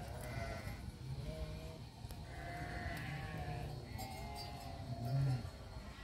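Sheep bleating, several drawn-out calls one after another, the loudest about five seconds in.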